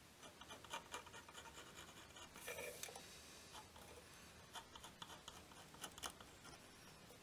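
Faint scratching of a steel scribe drawn along the edge of a paper template over a metal sword guard, marking out its shape in short strokes with small ticks.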